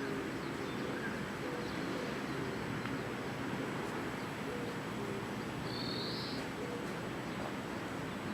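Steady outdoor background noise with faint, short, low bird cooing scattered through it and one brief high bird chirp about six seconds in.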